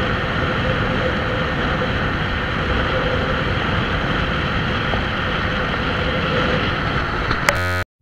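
Motorcycle cruising at road speed: a steady rush of wind over the microphone mixed with the engine's even hum. It cuts out abruptly near the end.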